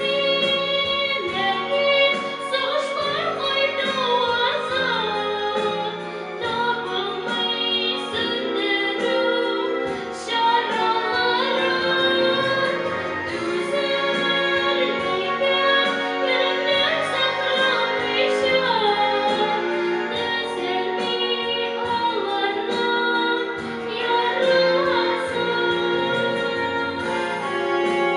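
A girl singing a song in Tatar into a handheld microphone, her voice gliding and held over instrumental accompaniment.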